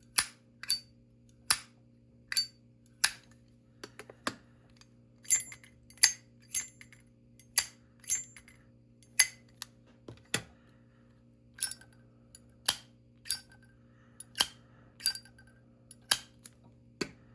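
Zippo lighter lids flipped open and snapped shut over and over: about two dozen sharp metallic clicks with a short ring, some in quick pairs.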